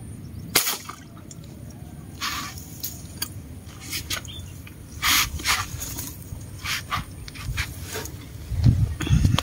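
A single sharp airgun shot about half a second in, then scattered clicks and small water splashes as the dart line is handled. Low thumps near the end come from handling the camera.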